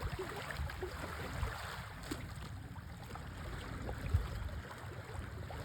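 Outdoor water-side noise: water lapping and gurgling with wind rumble on the microphone, and a few faint knocks, the strongest about four seconds in.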